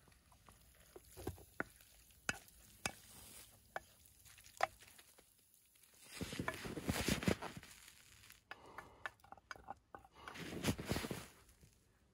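Wooden spatula knocking and scraping against a metal pot as noodles are scooped out onto a plate: scattered light knocks, with two longer scraping stretches about six and ten seconds in.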